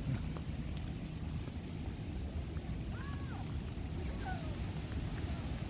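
Outdoor ambience: a steady low rumble with a few short bird chirps over it, the clearest about halfway through.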